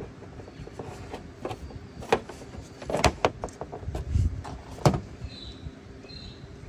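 Solar cables and MC4 connectors being handled on a corrugated metal caravan roof: a few sharp clicks and knocks, loudest about three and five seconds in, with a dull thump between them. Birds chirp near the end.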